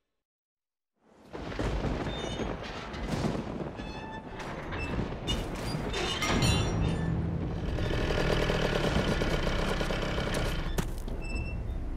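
Silence for about the first second, then a cartoon soundtrack of music mixed with sound effects: a run of short knocks and thuds, followed by a steadier, fuller stretch of music.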